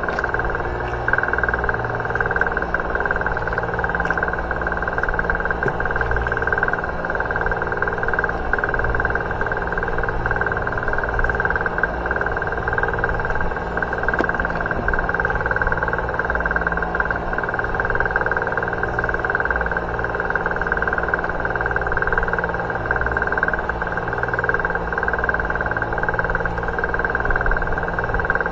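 An engine running steadily: an even low drone with a constant higher whine over it, unchanging throughout.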